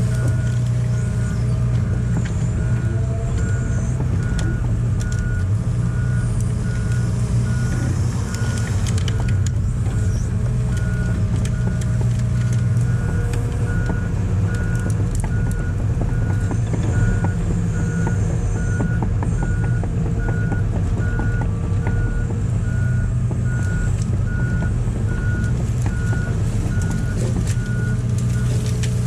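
Large excavator's diesel engine running steadily under hydraulic load, with its travel alarm beeping at one steady pitch about once a second while the machine moves. Scattered cracks and crunches come through over the engine.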